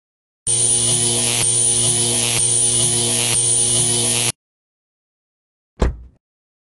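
Cartoon electric-shock sound effect: a loud crackling electrical buzz over a steady hum, repeating in about one-second sections and cutting off suddenly after about four seconds. A single heavy thump follows near the end.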